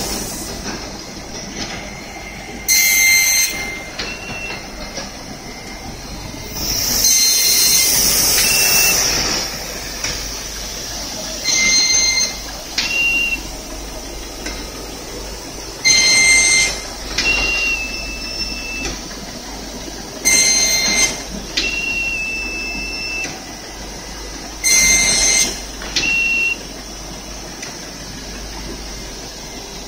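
JBT50-4D four-clamp perfect glue binding machine running, with steady mechanical running noise. A loud, high-pitched burst comes about every four to five seconds, each followed by a short higher tone, and a longer hiss comes about seven seconds in.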